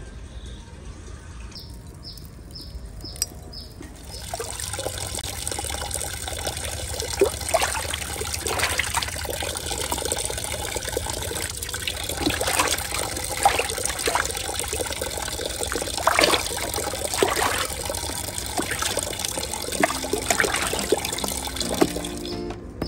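Hands washing and rubbing eels in a plastic basin of water, an irregular run of splashing and sloshing that starts about four seconds in and stops near the end.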